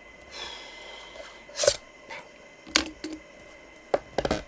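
A cardboard box and its packaging being handled and opened by hand: a scraping rustle, then three or four sharp knocks and taps.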